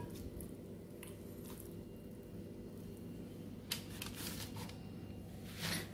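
Faint rustles and soft taps of hands pulling off and shaping soft bread dough and setting the balls down on a parchment-lined tray, over a steady low hum.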